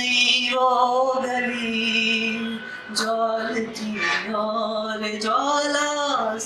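A man singing a Hindi geet (a poem set to a melody) into a microphone, in long held notes with a wavering pitch and short breaths between phrases.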